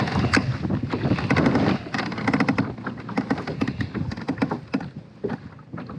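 Baitcasting reel being cranked during a retrieve: a rapid run of clicks and ticks, densest in the first half and thinning out near the end, over wind on the microphone.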